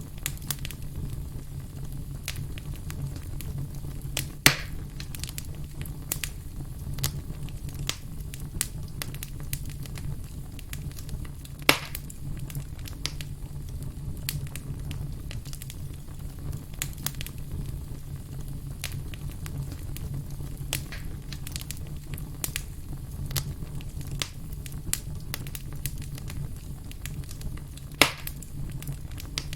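Wood campfire crackling steadily with many small snaps over a low, steady rumble of the flames. Three loud pops stand out: about four seconds in, near the middle and near the end.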